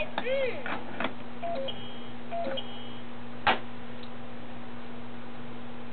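Plastic clicks from a fridge-magnet alphabet toy as a letter piece is handled and pressed, with one sharp click about three and a half seconds in. A few faint electronic toy tones and beeps come in the first three seconds, over a steady low hum.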